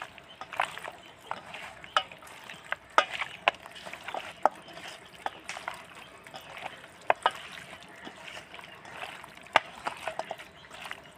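Hand mixing raw chicken pieces with spice paste in a stainless steel bowl: irregular wet squishes and sharp clicks as the meat is squeezed, turned and knocked against the metal.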